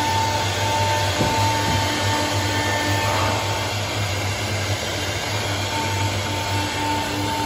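Woodworking CNC router running with its spindle whining steadily as it cuts plywood, over the constant hum and rush of its dust extraction.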